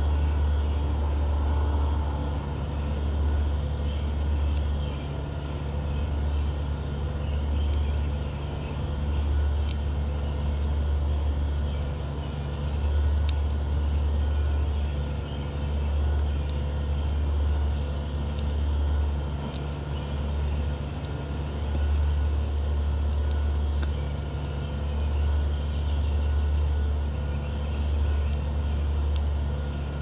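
A low mechanical drone that swells and fades every couple of seconds, with a few sharp clicks scattered through it.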